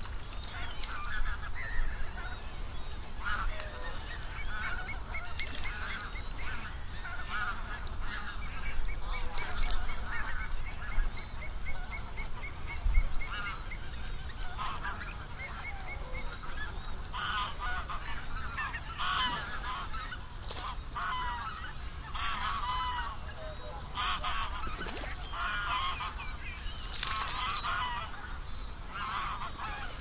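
A large flock of birds calling all at once: a dense chatter of many overlapping calls, with a fast, even run of repeated notes from about five to twelve seconds in. A steady low rumble lies underneath.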